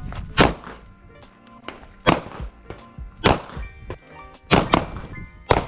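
Pistol shots, about six, fired unevenly about a second apart, over background music.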